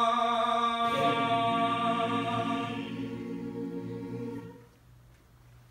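Mixed choir singing a cappella, holding a final sustained chord, with the low voices moving to a new note about a second in. The chord dies away about four and a half seconds in, leaving a hushed room.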